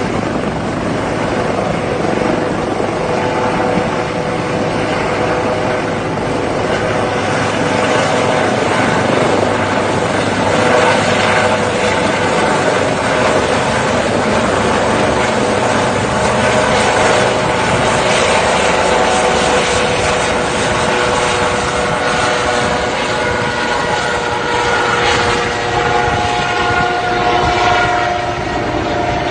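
Firefighting helicopter running steadily, its rotor and engine noise even throughout with a steady whine over it.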